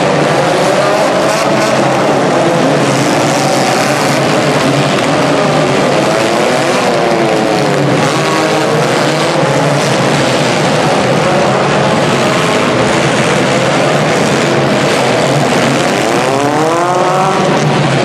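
Several compact demolition-derby cars' engines running and revving at once in an indoor arena, their overlapping revs rising and falling continuously, with a cluster of climbing revs near the end.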